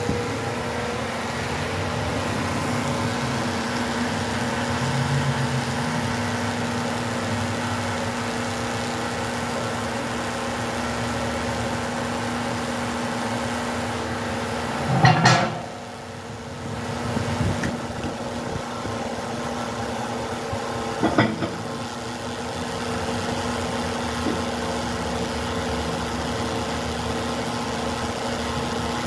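Steady hum of the electric motor and hydraulic pump of a tire press, two constant tones. A loud metal clank about halfway through, and a lighter one some six seconds later.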